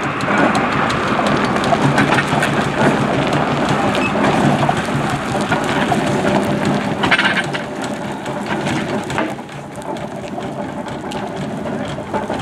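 Steam traction engine on the move at walking pace over gravel, heard as a steady rushing, crackling noise with a low hum.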